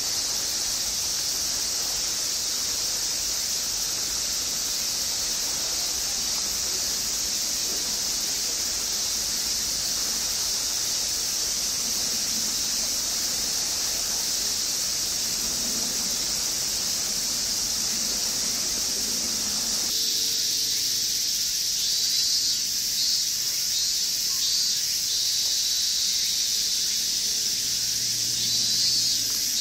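A chorus of cicadas droning in one continuous high-pitched sizzle. About two-thirds of the way through, the background changes abruptly and a fast-pulsing cicada call joins the steady drone.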